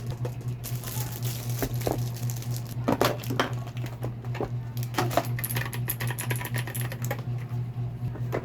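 Typing on a Darkflash GD101 wireless mechanical keyboard: a run of irregular key clicks, some in quick clusters.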